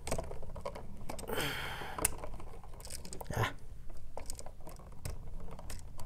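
Small irregular clicks and rustles of hands bending a bare copper ground wire around a screw terminal and handling a plastic electrical outlet, with a brief rustling hiss about a second and a half in.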